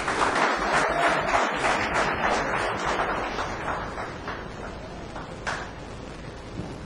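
Audience applauding, the clapping thinning out and fading away over about four seconds.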